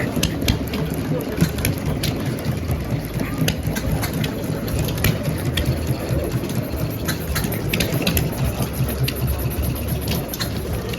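An engine running steadily at low speed, with many sharp mechanical clicks over its rumble.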